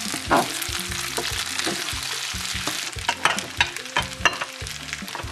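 Short noodles and egg sizzling in a hot nonstick frying pan as a spatula stirs and lifts them, with a steady frying hiss. Several sharp scrapes and taps of the spatula against the pan come through the hiss, most of them about three to four seconds in.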